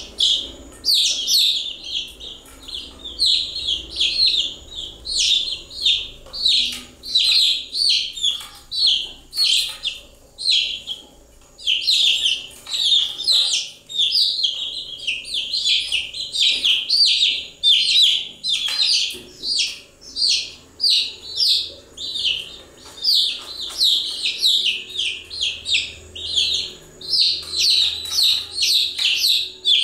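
Baby chicks peeping continuously: many rapid, high-pitched chirps overlapping, with a short lull now and then.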